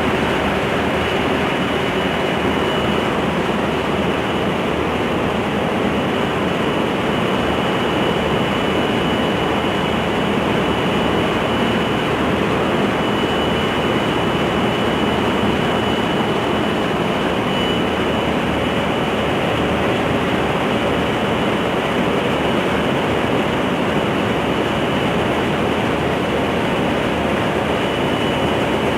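Ship's engine-room machinery running: a loud, steady din with a thin high-pitched whine over it.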